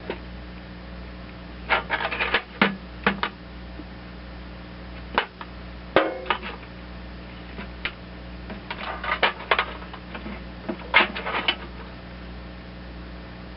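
Hand tools and small metal carburetor parts clicking and clattering in short irregular clusters while the float bowl retainer bolt of a Walbro carburetor is worked loose, over a steady low hum.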